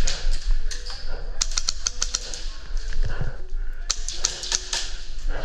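Airsoft guns firing in rapid bursts of sharp clicks, one about a second and a half in and another about four seconds in.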